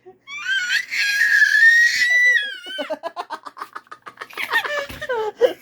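A baby's long, very high-pitched squeal, falling away near the end, followed by a fast run of short pulsing sounds, about eight to ten a second, like a stuttering giggle.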